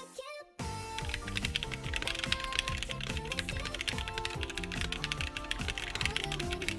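Fast, continuous typing on a custom 60% mechanical keyboard, with keystrokes clicking several times a second. Background music with a repeating bass line plays under it. Both start together about half a second in, after a brief drop.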